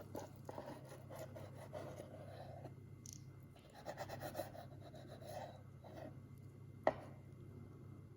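Food being cut with a knife on a cutting board, in short runs of quick strokes, with one sharp knock near the end. A steady low hum runs underneath.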